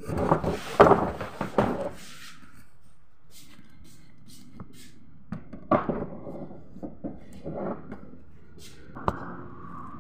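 Scattered knocks and thuds of someone moving through a doorway, a door banging among them, with a louder cluster of handling noise and bumps in the first two seconds.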